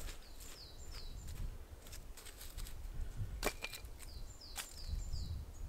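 A hand scraping and scattering dry leaf litter and wood ash on the forest floor, in crackly rustles and scratches, with one sharper crack a little past halfway. A bird sings two runs of short, quick falling notes behind it.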